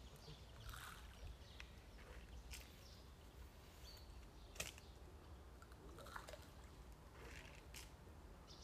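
Near silence, with a low steady rumble and a few faint clicks and rustles from a bait catapult being loaded and fired; the sharpest snap comes about halfway through.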